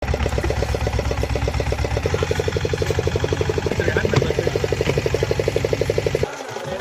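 Boat engine running with a fast, even pulsing, which stops abruptly near the end, leaving a quieter running sound.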